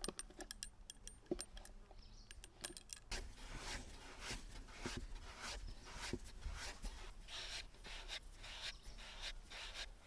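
Light clicks and clinks, then from about three seconds in a run of rhythmic rubbing or scraping strokes, about two to three a second.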